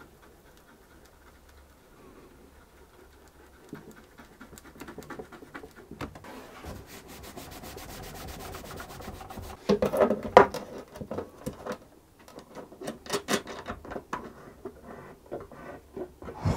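A cloth pad rubbing back and forth over a glued crack in a cello's wooden rib, wiping away the squeezed-out glue, in quick strokes that grow louder. It is broken by a few sharper knocks and clicks from handling the instrument and the crack clamps, about ten seconds in and again a few seconds later.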